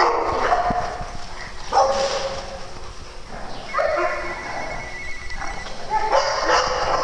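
Dogs barking and yipping at play, in bursts about every two seconds.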